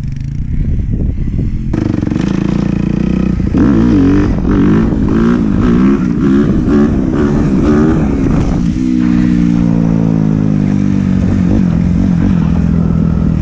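Dirt bike engine running close by. From a few seconds in the throttle is blipped over and over, so the revs rise and fall. Then it settles to a steady fast idle and cuts off suddenly at the end.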